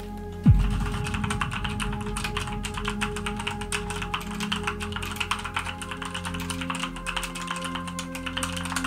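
Fast, steady typing on a computer keyboard over a dark, droning film score. About half a second in, a deep booming hit drops sharply in pitch.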